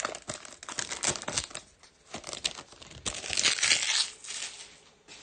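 Shiny red foil wrapper of a Topps Chrome trading-card pack crinkling in rapid crackling bursts as it is pulled open, fading out near the end.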